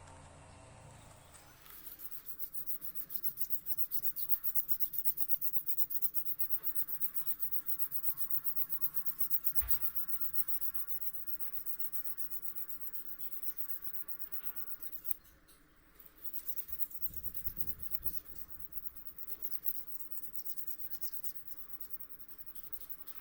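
Abrasive paper rubbing on the steel blade of a Japanese yanagiba knife in quick, even back-and-forth strokes, hand-sanding it during rust removal and polishing. The strokes stop briefly about two-thirds of the way through, then carry on.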